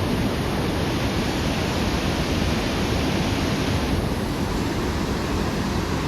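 Steady rushing wind noise buffeting the microphone, unchanging throughout.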